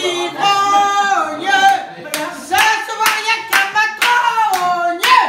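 A small group of voices singing a French drinking chant together. From about two seconds in, steady handclaps keep time at roughly two a second.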